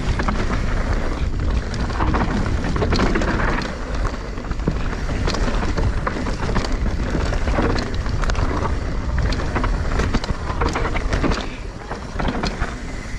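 Mountain bike descending a rough dirt downhill trail at speed: wind buffeting the microphone, tyres rolling over dirt and rocks, and the bike knocking and rattling over bumps many times a second.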